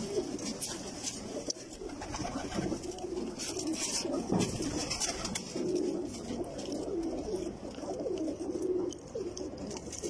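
A loft full of domestic pigeons cooing, many low coos overlapping one another without a break.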